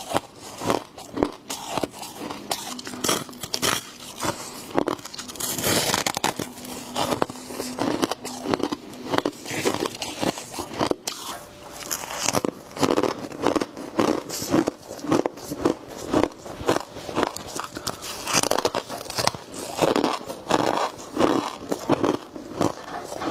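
A person biting and chewing crunchy frost close to the microphone, with many irregular crunches throughout.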